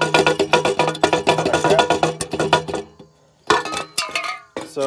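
Background music: a plucked-string tune of quick, sharp notes. It breaks off about three seconds in and resumes about half a second later.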